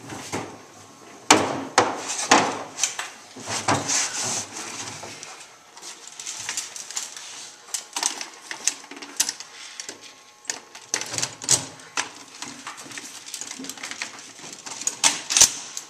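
Irregular clicks, knocks and rustling of handling: someone climbing into a utility vehicle's plastic cargo bed, and an A&K SAW Para airsoft light machine gun being handled and set onto a wooden post mount. The loudest knocks fall in the first few seconds.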